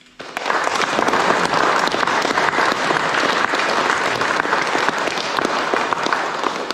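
Audience applauding: many hands clapping together, starting abruptly and holding steady.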